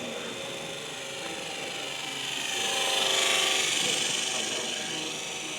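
Small electric model airplane's geared motor and propeller whining as it flies past. It grows louder, peaks about three seconds in, then fades, its pitch shifting as it passes.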